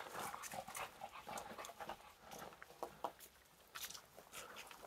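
A dog panting faintly, with scattered light scuffs and ticks.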